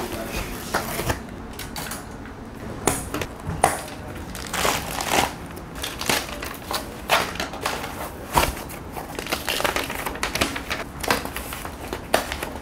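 Plastic wrap and foam packing crinkling and rustling as they are pulled off a new road bicycle, in dense, irregular crackles with occasional sharper knocks.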